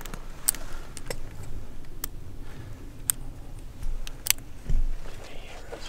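A few sharp, separate clicks from gear being handled, about four spread over several seconds, over a faint low rumble.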